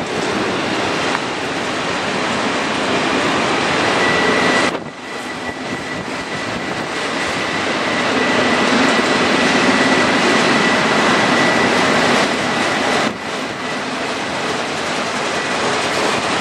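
Freight train of autorack cars rolling past close by: a steady, loud rush of steel wheels on rail. A thin, steady high squeal runs for several seconds through the middle.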